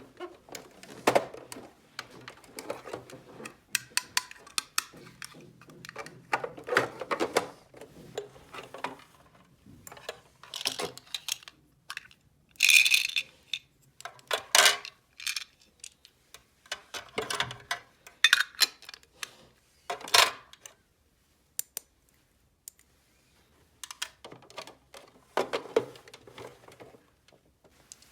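Small hard plastic toy pieces being handled: irregular clicks, taps and light clattering as parts are set down, snapped and knocked together, with short pauses between.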